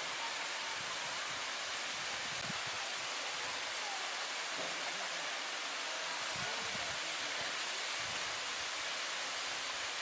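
Steady rushing of water from small waterfalls and the stream in a ravine, an even hiss with no breaks.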